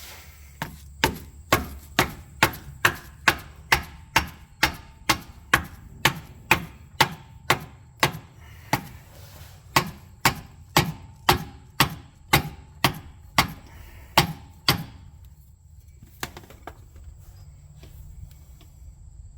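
Hammer blows, steady and sharp at about two a second for some fourteen seconds, then two more after a short pause, driving the new transmission torque arm into its mount.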